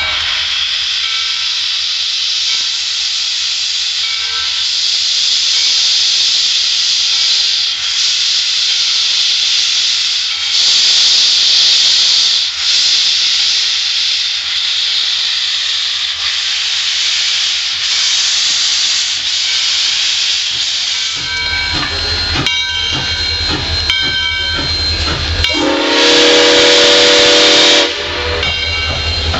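Southern Railway 630, a 2-8-0 steam locomotive, pulling out with a loud, steady hiss of steam that swells in surges every couple of seconds. From about two-thirds of the way in, the rhythmic clatter and rumble of its wheels over the rail joints comes through, and near the end its steam whistle sounds one blast of about two seconds, the loudest sound.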